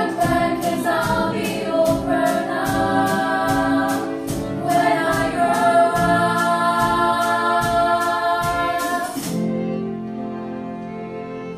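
A group of schoolgirls singing a musical-theatre song together with accompaniment and a steady ticking beat. About nine seconds in, the beat and the voices stop, leaving softer held notes of the accompaniment.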